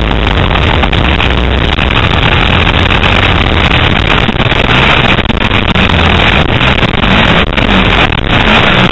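Motocross bike engine running hard at close range, heard from on board the bike, loud and continuous.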